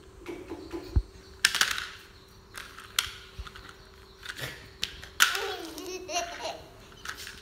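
A baby babbles and gives a short giggle about two-thirds of the way in, among sharp clacks and taps from a plastic toy excavator being handled.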